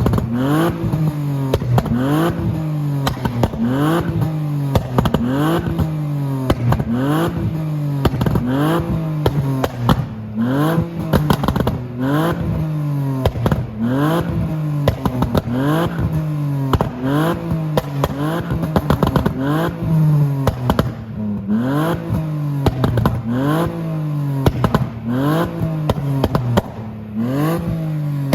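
BMW E46 325i's 2.5-litre straight-six, running a custom pops-and-bangs remap, revved again and again in quick blips, about one every second and a half. Each rev rises and falls back, and sharp crackles and pops come from the exhaust as the revs drop.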